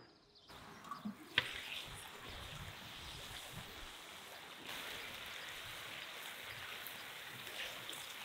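Oxtail pieces sizzling in hot fat in a cast-iron kazan: a steady frying hiss with light crackles, starting about half a second in.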